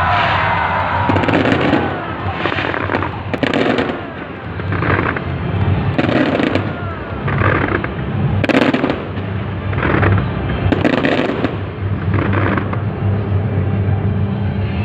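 Fireworks bursting about once a second over loud show music with a steady low bass.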